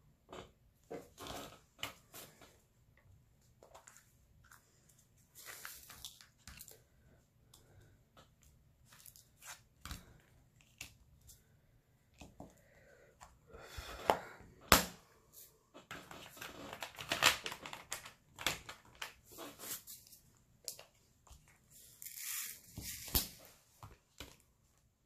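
Small irregular clicks and taps of diamond-painting work: a drill pen picking up resin drills and pressing them onto the sticky canvas, with bursts of crinkly rustling from plastic sheet or film being handled.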